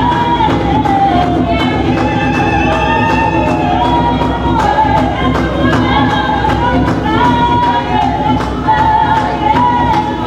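Singing voices over music with a steady beat, a held melody line moving in steps.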